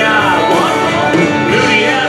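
Country song played by a band, with guitars and a singing voice.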